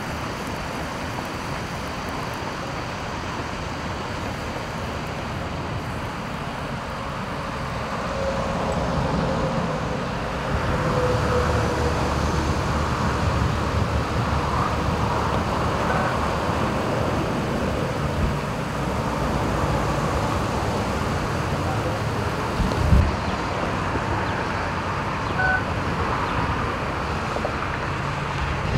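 Steady traffic and roadway noise on a wet street, with tyre hiss and a low rumble of passing vehicles, and one short knock about two-thirds of the way through.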